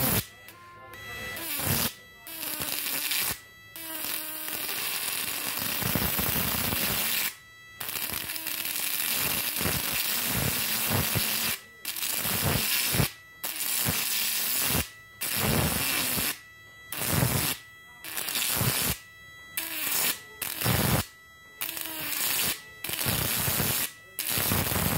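High-voltage electric arc drawn between the two output leads of a homemade 1000-watt fish-shocking inverter: a loud crackling buzz that breaks off and strikes up again more than a dozen times, in bursts of one to three seconds.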